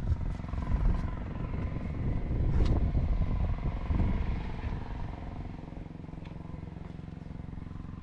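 Motorcycle engine idling steadily. It is louder and rougher for the first few seconds, then settles to an even idle about five seconds in.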